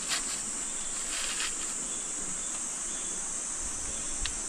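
Insects buzzing in a steady, high-pitched drone, with a few faint knocks.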